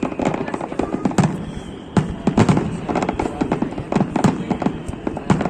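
Fireworks display: a dense, rapid barrage of firework bangs and crackles, several a second with no break.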